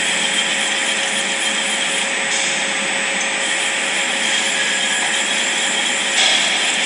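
Five-axis CNC machine running: a steady spindle whine over continuous cutting noise, getting louder and brighter about six seconds in.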